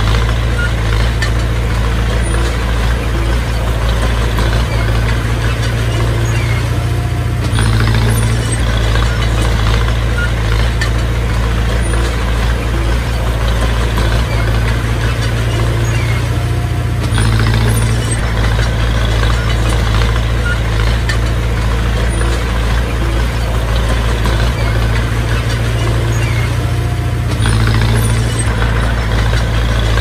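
Komatsu bulldozer's heavy diesel engine running steadily, with a deep low rumble; the sound shifts about every ten seconds as the machine works through its cycle.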